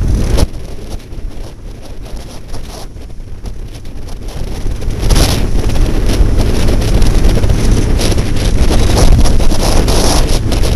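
Wind buffeting the microphone on a sailboat under way, a gusty rumble that grows stronger about five seconds in.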